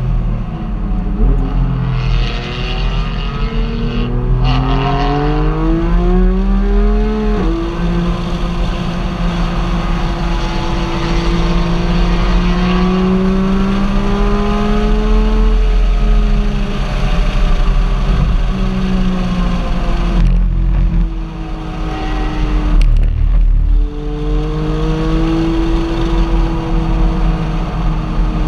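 Car engine pulling under way, its pitch climbing then dropping sharply at a gear change about seven seconds in, and holding fairly even afterwards, over a steady deep rumble of road noise.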